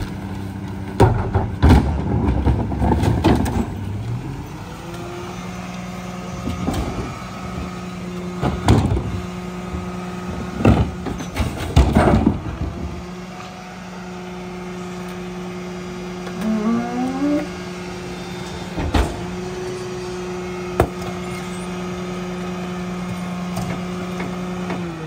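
A Mack garbage truck runs its McNeilus rear loader's hydraulic packer with a steady hum, while trash bins are banged against the hopper and trash drops in with several loud knocks in the first half. A short rising squeal comes a little after halfway, and near the end the hum's pitch falls.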